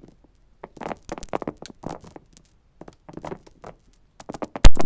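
Coins, mostly pennies, dropping onto carpet and onto each other: an irregular run of short taps, with one much louder knock near the end.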